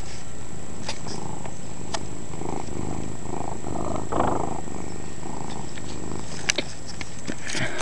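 Domestic cat purring steadily right up against the microphone, with a few light clicks.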